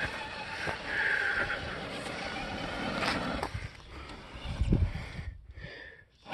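Electric motor and transmission of a Traxxas TRX-4 Bronco RC crawler whining, the pitch wavering with the throttle as it climbs a steep slope of loose gravel, with small sharp clicks of stones. About four and a half seconds in comes a short loud low rumble, and the sound then drops away.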